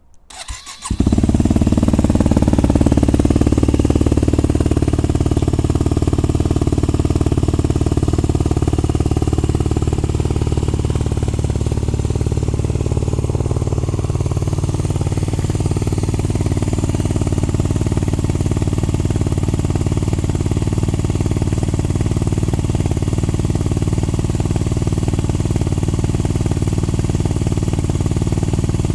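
Yamaha WR250X/R 250 cc single-cylinder four-stroke with an FMF Powercore 4 exhaust and open airbox, cranked briefly and catching about a second in, then idling steadily. The idle is a little faster for the first few seconds before it settles.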